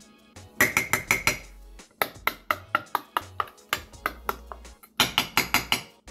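Metal spoon knocking and scraping canned cat food into a stainless steel bowl: a series of sharp, ringing clinks in three quick runs.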